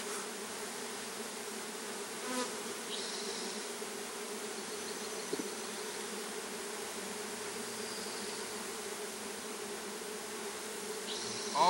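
Italian honeybees buzzing in a steady drone, a mass of them just shaken out of their package into a hive box and smoked to settle them.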